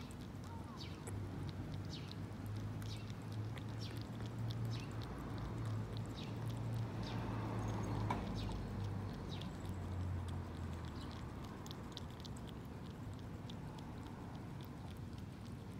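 A cat eating soft wet food: irregular wet clicks and smacks of chewing and licking, over a low steady hum that fades out about two-thirds of the way through.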